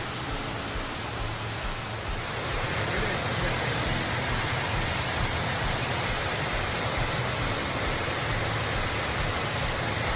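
Waterfall rushing steadily, a little louder and brighter from about two seconds in.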